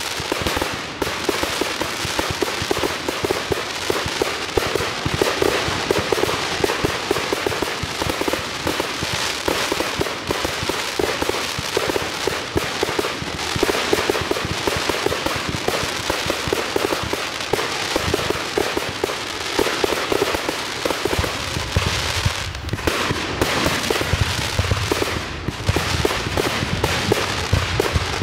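A professional fireworks display in a dense barrage: bangs and crackling follow each other with no break. Deeper booms join in about three-quarters of the way through.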